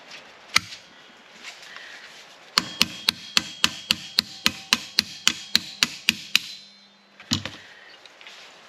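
Hammer blows on a rusted steel strut part: one strike, then a steady run of about fifteen ringing metal strikes at about four a second, and one last blow near the end.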